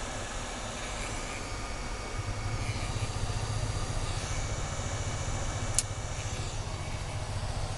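Hot air rework gun blowing over a circuit board: a steady hiss with a low rumble of airflow that grows louder about two seconds in as the nozzle is brought down onto the board, and a single sharp click about six seconds in.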